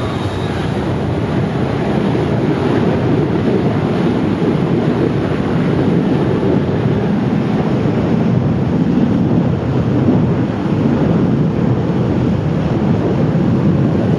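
Jet blast from an airliner taking off: a steady, loud rushing roar of engine exhaust and wind buffeting the microphone, growing a little louder over the first couple of seconds.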